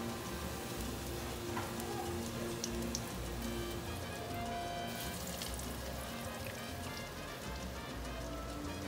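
Smashed plantain slices (tostones) sizzling in hot oil in a frying pan, over background music.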